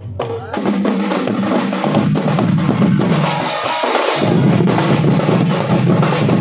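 An ensemble of barrel drums beaten with sticks and large brass hand cymbals plays a fast, dense, steady rhythm. It comes in loud about half a second in. The deep drum drops out for a moment a little after three seconds, then resumes.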